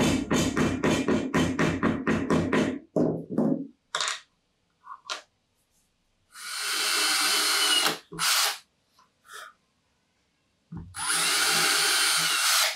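A hammer taps a metal T-nut into a hole in a wooden workpiece with a quick run of about a dozen sharp blows. Then a cordless drill fitted with a countersink bit runs in short bursts in the wood: about a second and a half, a brief burst, then about two seconds near the end.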